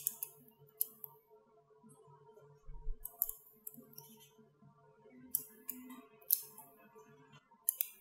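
Small magnetic balls snapping and clicking as they are pressed one by one onto a figure built of the same balls: about ten sharp clicks at uneven intervals, some in quick pairs.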